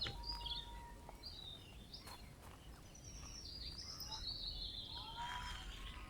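Small songbirds chirping, many short high chirps and whistled notes, with a longer call near the end, over a faint low rumble of outdoor noise.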